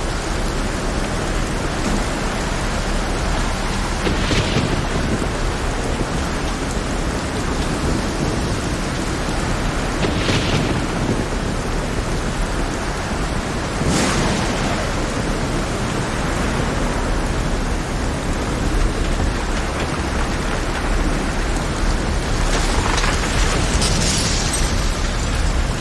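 Heavy rain falling on a rough sea, a steady dense hiss. Brief louder surges break in about four seconds in, near the middle, and again in a longer swell near the end.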